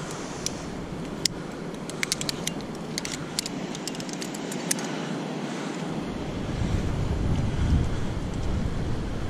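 Metal climbing hardware clicking and clinking as a rope pulley and a carabiner are handled and unclipped, a scatter of sharp clicks over the first five seconds, over steady surf noise from below. From about six seconds in, wind rumbles on the microphone.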